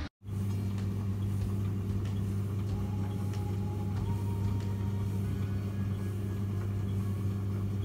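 A steady low hum, like an appliance or motor running, with a faint higher tone held for a couple of seconds in the middle.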